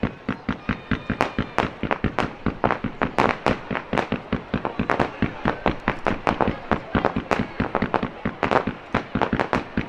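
Aerial firework shells bursting in a rapid barrage, several sharp bangs a second, fired at close range.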